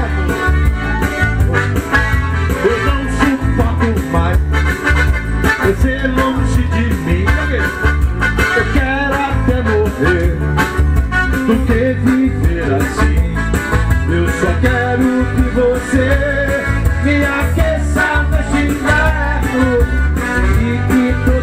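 Live dance music from an electronic keyboard played through a pair of large PA speakers, with a steady beat and a moving melody line.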